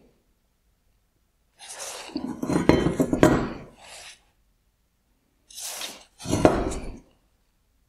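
Mercedes-Benz W204 C-Class halogen headlight projector, a metal reflector-and-bracket assembly, being turned over and set down on a wooden workbench: clinks and knocks in two spells, starting about two seconds in and again a little after five seconds.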